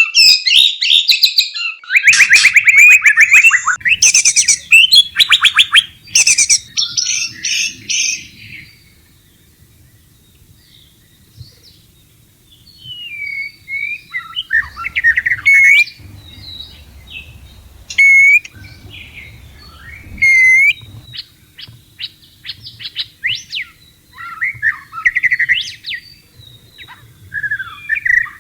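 White-rumped shama (murai batu) singing: a loud, fast chattering and rattling song for the first several seconds, a short lull, then quieter phrases of sharp rising whistles and clicks. It is given as the call of a shama in breeding condition calling for a mate, typical of the female's chatter.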